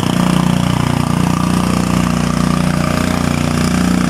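Engine running steadily at an even pitch.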